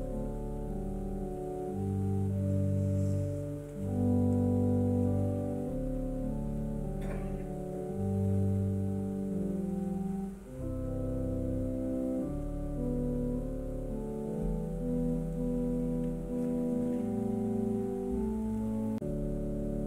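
Organ playing slow chords, each held for a second or two without fading, over a low bass line.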